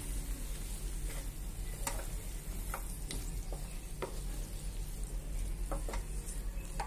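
Wooden spatula stirring and scraping fried potato cubes through mint paste in a non-stick kadhai, with a light sizzle of frying and a handful of separate sharp knocks of the spatula against the pan. A low steady hum runs underneath.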